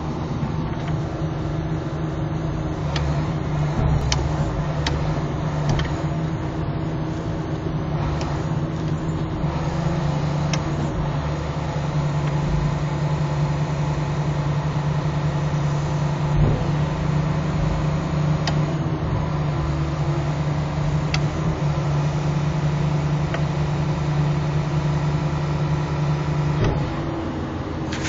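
Hitachi 330 excavator's diesel engine running steadily, heard from the operator's cab, with a few light clicks and knocks over the drone. The engine note shifts slightly about a third of the way in and again near the end.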